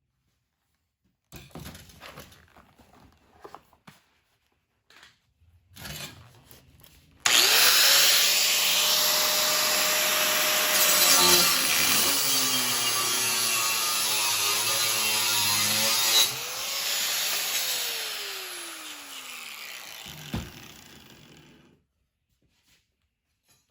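Electric angle grinder cutting metal: after a few light knocks of handling, the motor spins up about seven seconds in and cuts with a loud steady hiss for about nine seconds. It then comes free of the cut, its motor pitch rises briefly and falls as the disc winds down, with a short knock near the end.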